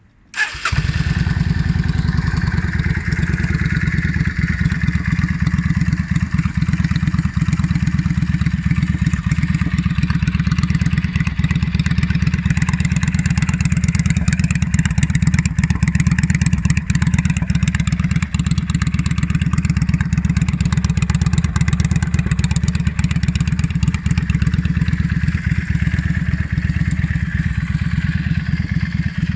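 Yamaha XVS650 Drag Star's air-cooled V-twin starts about half a second in and then idles steadily.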